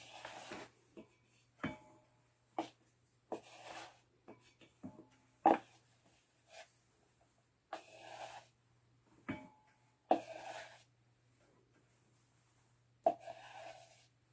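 Irregular scraping and knocking as flour and baking powder are scraped out of a plastic mixing bowl into a stand mixer's steel bowl: a handful of short rasps and sharp clicks, over a faint steady low hum.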